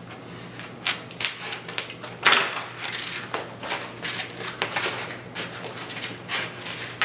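Scraping and crunching of EPP foam as a cut spar groove in a foam wing is dug out, in irregular short strokes, the loudest about two seconds in.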